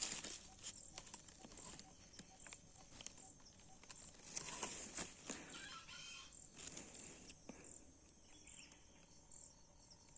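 Faint calls of a chicken, a few short clucks about halfway through, among small rustles and clicks.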